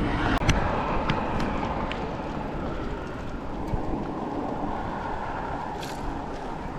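Steady rushing noise of a bicycle ride: wind over the microphone and tyres rolling on pavement, with a few light clicks and rattles.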